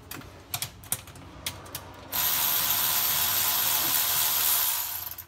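Ratchet wrench working a transmission pan bolt: a few scattered clicks, then about three seconds of loud, continuous ratcheting as the last pan bolt is run out.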